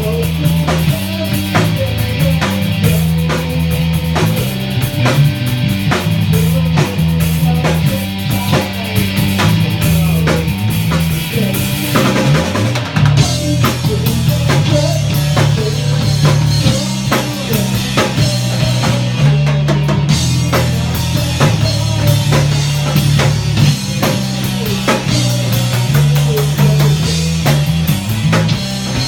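Rock music with a driving drum kit, a heavy bass line and guitar.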